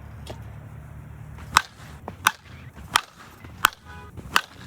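Five sharp cracks of a senior slowpitch softball bat striking the ball, one after another about two-thirds of a second apart, with a couple of fainter knocks among them.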